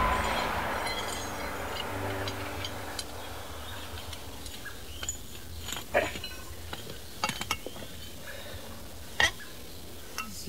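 A passing car's rush fades away, then a few scattered light metallic clinks and clicks as tyre-changing tools are handled at the roadside.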